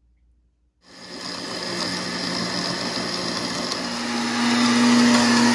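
Countertop blender switching on about a second in and running steadily as it blends frozen banana and apple chunks, oats, almonds and milk into a smoothie. Past the middle its motor hum steps up in pitch and gets louder.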